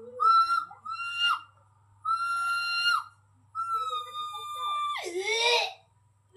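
A person's high-pitched shrieking cries: short rising yelps, then two long cries each held steady for about a second, the last sliding sharply down in pitch before breaking off.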